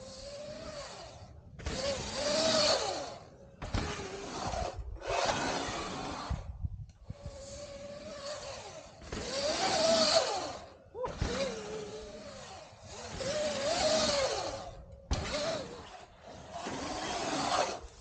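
Sur-Ron L1e electric dirt bike passing several times, its motor whine rising and falling with the throttle over tyre and wind noise. Each pass swells and fades, and the sound cuts off abruptly between short clips.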